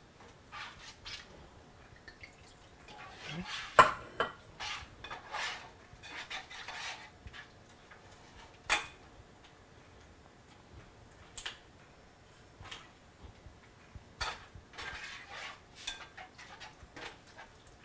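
Slotted plastic spatula stirring and scraping chicken in a wine and cheese sauce in a nonstick frying pan, with scattered clicks and taps of the spatula against the pan. The sharpest tap comes about four seconds in.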